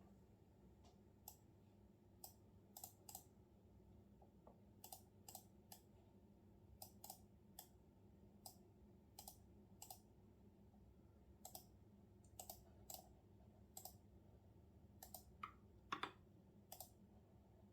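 Computer keyboard typing: scattered, irregular key clicks, some in quick pairs, with a louder key strike about sixteen seconds in.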